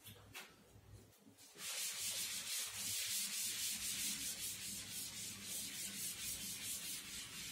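Chalkboard being wiped with a duster: quick back-and-forth rubbing strokes, several a second, starting about a second and a half in.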